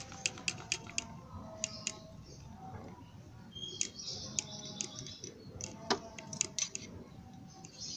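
Honda Win 100 clutch plates, friction and steel, clicking and clinking against each other as they are handled by hand and oiled before refitting. There is a string of light, sharp clicks, with one louder knock about six seconds in.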